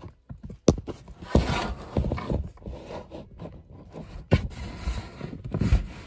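Irregular knocks and scrapes as a litter of kittens scramble and shuffle about in a plastic tote close to the microphone.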